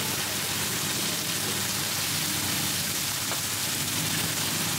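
Hot oil sizzling steadily as shrimp and mussel pancakes (hoi tod) fry on a wide flat pan.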